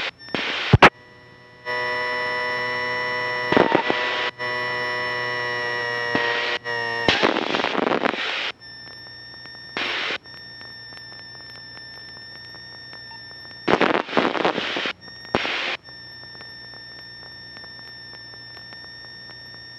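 Light aircraft's intercom and radio audio feed: a steady electronic whine over hiss, a buzzing tone for about five seconds starting about two seconds in, then several short bursts of radio noise.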